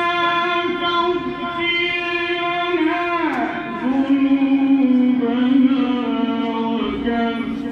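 Melodic Quran recitation (tilawat): a single reciter's voice drawing out long held notes. About three seconds in the pitch slides down and settles into a lower sustained note.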